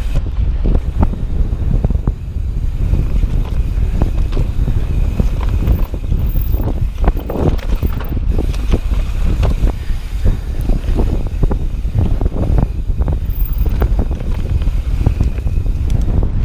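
Wind buffeting the microphone during a fast mountain bike descent, with a steady low rumble and frequent clicks and knocks from the bike rattling over rough dirt trail.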